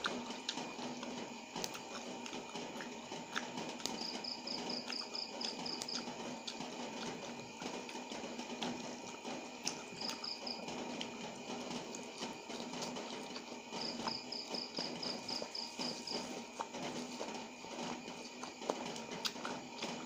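A cricket chirping in runs of quick high pulses, about four a second, each run lasting a second or two and coming every four to six seconds, over a steady hum. Small clicks as tamarind leaves are picked from their stems.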